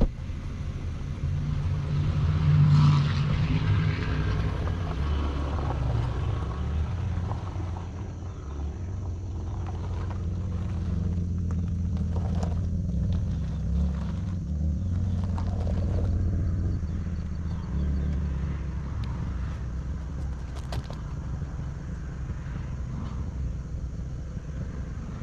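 2011 Mazda 3's four-cylinder engine running with an exhaust leak: a steady low exhaust rumble, louder for a moment a few seconds in, with scattered light clicks over it.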